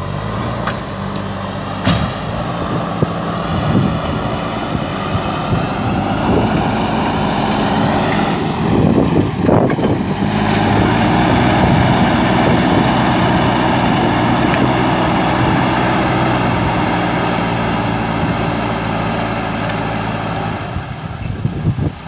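JCB backhoe loader's diesel engine running steadily under load as the machine pushes soil with its front loader bucket, a little louder in the second half.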